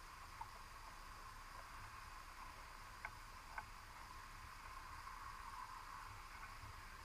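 Faint steady underwater hiss and low rumble, muffled through a GoPro's waterproof housing inside a submerged crab pot, with three faint clicks: one just after the start and two about half a second apart near the middle.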